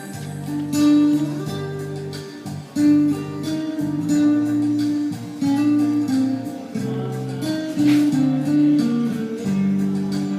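Background music: an instrumental guitar passage with strummed and plucked chords.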